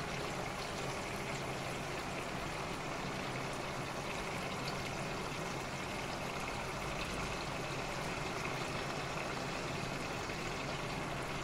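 Chicken karahi simmering in a wok on a gas stove: a steady sizzling hiss of the bubbling sauce, unbroken throughout.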